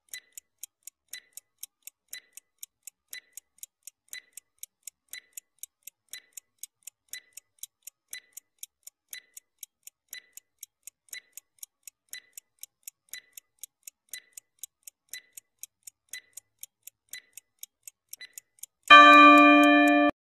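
Countdown-timer sound effect: a clock ticking about twice a second. Near the end it gives way to a loud steady tone lasting about a second, marking the countdown reaching zero and time being up.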